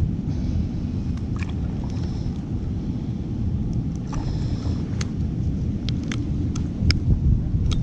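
Wind buffeting the microphone as a steady low rumble, with a scattering of light, sharp clicks as fishing pliers and a lip gripper are handled.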